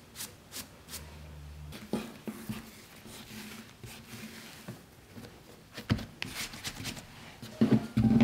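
A pastry brush stroking the surface of laminated croissant dough a few times. Then the dough sheet is lifted and rolled up by hand on a wooden board, with soft rustles and a few dull knocks of hands on the board near the end, the loudest just before the end.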